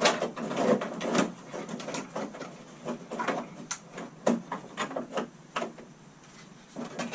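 RV dimmer switch being test-fitted into a cut hole in a wall panel: irregular scraping and rubbing with light knocks.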